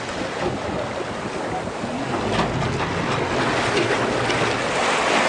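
Wind buffeting the microphone and choppy sea water splashing around a moving boat, with a boat motor running low underneath.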